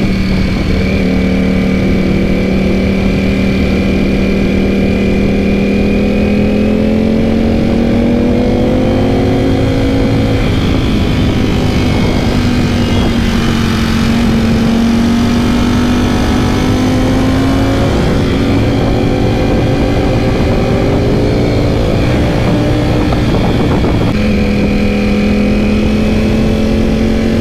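Ducati Panigale V4 S sportbike engine running in second gear at part throttle, heard from on the bike. The note holds steady at first, wavers up and down midway as the throttle changes, and settles steady again near the end.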